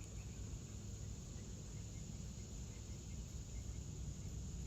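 Insects, such as crickets, droning steadily in a high, unbroken band, with a low rumble underneath.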